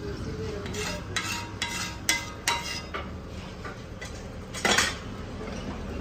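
Metal cooking utensils clinking against a pan, with half a dozen sharp clinks in the first three seconds and one louder clatter about five seconds in.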